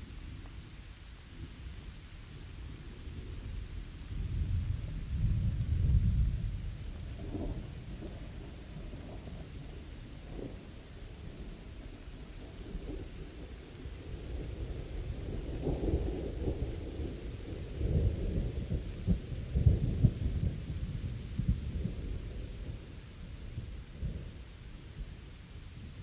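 Steady rain falling through a thunderstorm, with low rolls of thunder: one swells about four seconds in, and a longer roll rumbles through the middle and the latter part.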